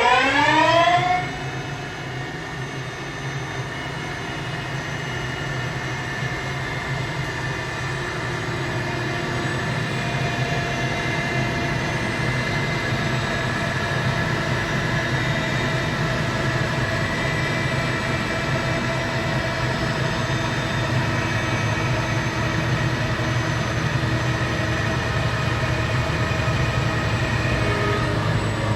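The spindle of an MR 2940 wheel-repair CNC lathe, with an alloy wheel mounted, spins up with a rising whine that levels off about a second in. It then runs steadily at speed, a machine hum with several pitched tones, during the diamond-cutting machining pass.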